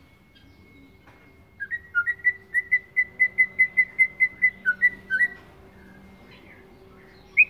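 Young male white-rumped shama (murai batu) practising its song. It gives a quick run of about eighteen short whistled notes, about five a second, then after a pause one loud rising note near the end. This is the halting song of a bird still learning to sing.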